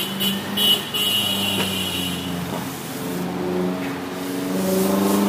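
Road traffic: a motor vehicle's engine running steadily, then rising in pitch near the end as it speeds up. A few sharp clatters and a high squeal come in the first two seconds.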